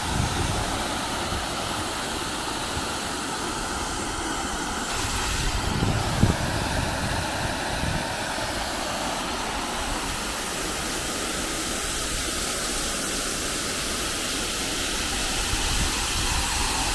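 Fountain water falling in a tall cone from a ring of jets and splashing into its basin: a steady rushing spray. A brief thump about six seconds in.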